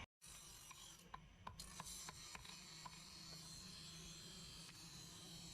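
Faint rubbing or filing of metal by hand, with a handful of light ticks between about one and three seconds in, over a low steady hum.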